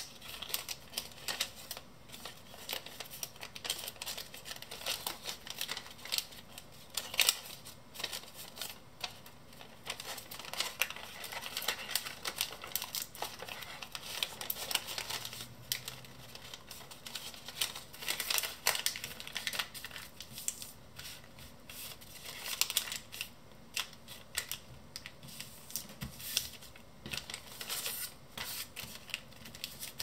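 A sheet of brown origami paper being folded and creased by hand: irregular crisp crackles and rustles, with a few sharper snaps of stiff paper.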